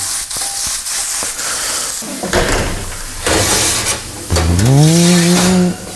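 Mushrooms sizzling in a hot frying pan, with scattered clicks. About four seconds in, a hum rises in pitch, holds for over a second, and cuts off.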